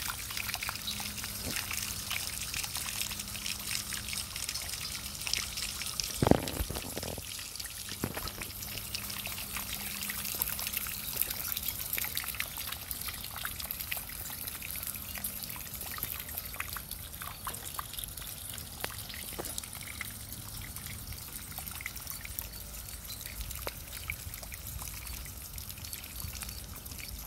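Water trickling and dripping down a copper cup-style rain chain, spilling steadily from cup to cup with many small splashes. A single low thump about six seconds in.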